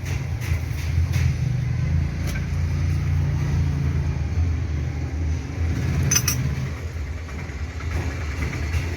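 A JCB 3DX backhoe loader's diesel engine running at a steady idle, which points to the repaired starter motor having cranked it into life. There is a brief high-pitched clink about six seconds in.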